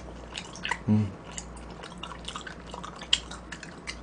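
Close, wet chewing and small mouth clicks of a person eating mulhoe, cold raw-fish soup, with a short low hum about a second in.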